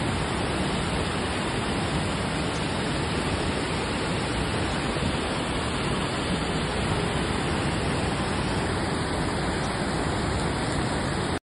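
Steady rush of water from torrential rain and floodwater pouring down a street, cutting off suddenly near the end.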